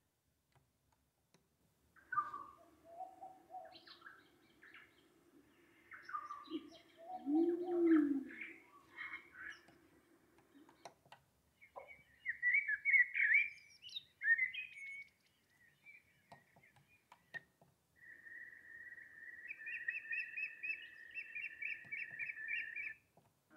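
Recorded birdsong sleep sounds played through the Lumie Bodyclock Shine 300's small built-in speaker: a few short bird samples in turn (the menu lists tropical birds, blackbird and osprey), with chirps and calls and brief pauses and button clicks between them. The last sample is a steady high tone with rapid repeated calls over it.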